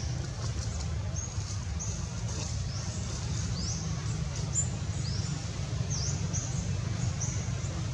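Short, high-pitched squeaky animal calls, each a quick bend in pitch, repeated one or two times a second over a steady low rumble.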